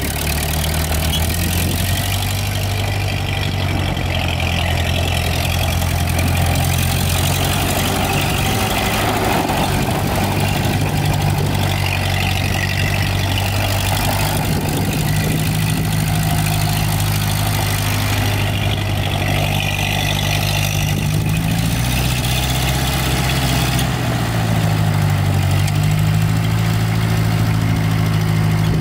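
1948 Ford 8N tractor's four-cylinder flathead engine running steadily at low speed while the tractor is driven. The engine note dips and picks up again a couple of times in the second half.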